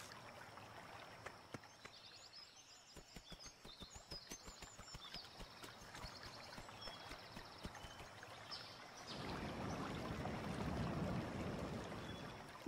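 Faint jungle ambience: small high chirps and light ticking, then from about nine seconds a low, even rush of running river water.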